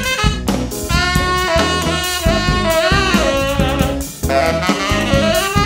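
Live funk band with a tenor saxophone playing the lead line over drum kit, with a short break just after four seconds in.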